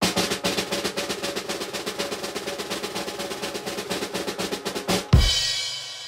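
Snare drum roll for about five seconds, ending in a bass drum hit with a cymbal crash that rings on and fades away.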